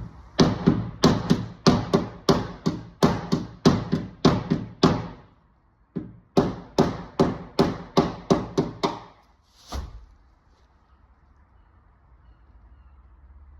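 Hammer blows on a car's sheet-metal door skin, about three a second, in two runs with a short pause between them and one last blow near the end. The dented door is being knocked out to sit flush with the sill.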